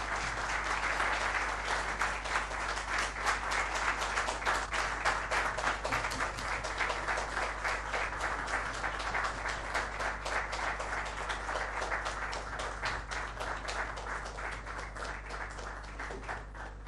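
Audience applauding, dense steady clapping from a large crowd that thins and fades gradually over the last few seconds.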